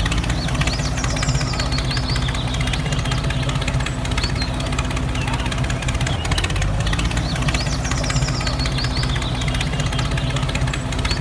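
Walking-tractor engine running steadily with a fast knocking beat. Birds chirp high above it in two short runs.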